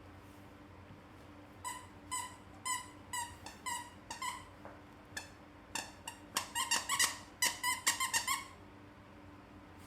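A dog squeezing a squeaky toy in its mouth: a run of short, high squeaks starting about two seconds in, coming faster and louder after about six seconds, then stopping.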